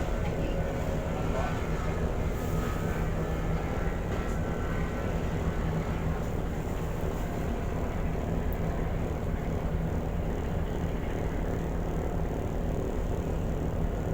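A ferry's engines droning steadily, with a constant low hum under a rushing noise that neither rises nor falls.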